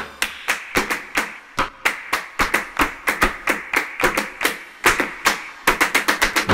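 Flamenco palmas: a group clapping hands in a syncopated rhythm, several sharp claps a second, with shoe heels stomping on the floor.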